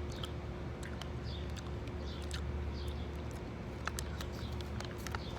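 Mouth sounds of someone chewing small berry-flavoured candies: scattered soft smacks and sharp little clicks over a steady low hum.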